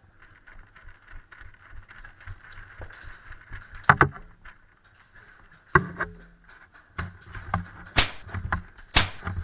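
Airsoft gameplay: a run of irregular knocks and clicks from a player moving with gear and rifle, with a few loud sharp cracks about four, six, eight and nine seconds in. A faint steady high hum lies underneath.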